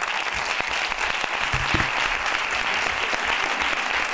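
Audience applause: steady, sustained clapping by many hands, rising in just before and holding level throughout.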